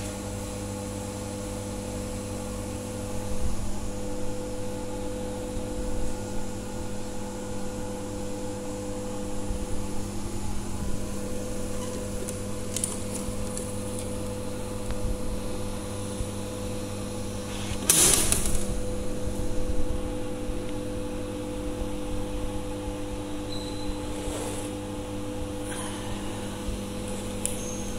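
Steady hum of a coffee vending machine running, made of several held tones, with a few light knocks and one sharp clack about eighteen seconds in.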